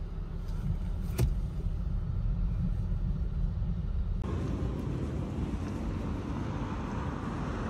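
Chevrolet Camaro running, heard from inside the cabin as a steady low rumble, with a single click about a second in. About four seconds in, the sound opens out into a wider steady outdoor hiss over the low rumble.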